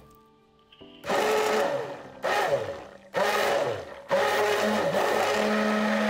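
Hand blender running in a plastic beaker, emulsifying milk and oil into a thick lactonesa (eggless milk mayonnaise). After about a second of silence it comes in three short bursts, each fading with a falling pitch, then runs steadily from about four seconds in.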